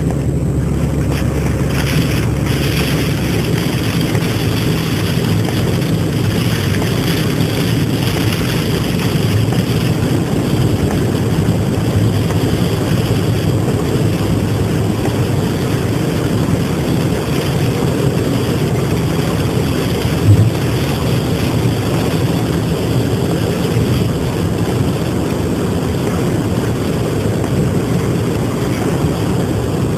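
Heavy hail falling: a dense, steady clatter of countless hailstone impacts, with one louder single hit about twenty seconds in.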